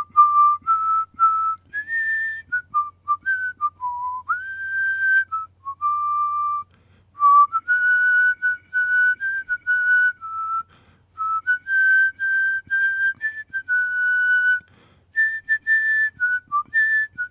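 A person whistling a tune: clear single notes moving up and down in short phrases, with a few slides between notes and brief pauses.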